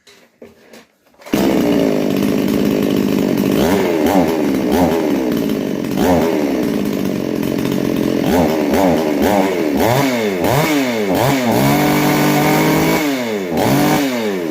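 Two-stroke chainsaw engine, its low-speed (L) carburettor screw turned out to richen the mixture, running and revved up and back down again and again with quick throttle blips without stalling. It is held at high revs for about a second near the end before dropping back. The engine comes in suddenly about a second in.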